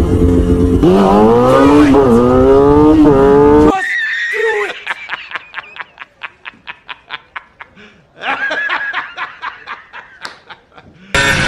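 Motorcycle engine revving, its pitch climbing in three quick runs, until it cuts off suddenly a little under four seconds in. A man then laughs hard in rapid, regular 'ha-ha' bursts that tail off, pauses, and laughs again, and engine noise cuts back in at the very end.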